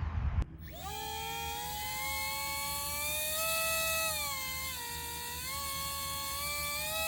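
Battery-powered Volantex foam RC plane's electric motor and propeller whining, the pitch stepping up and down several times as the throttle changes. It starts abruptly about half a second in.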